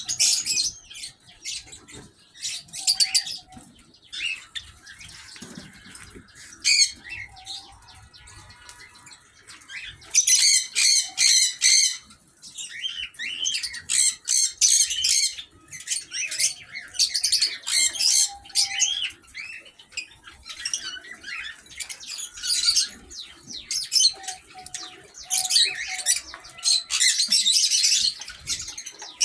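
A flock of small aviary birds chirping and squawking together, in quick bursts of high calls that rise and fall in loudness.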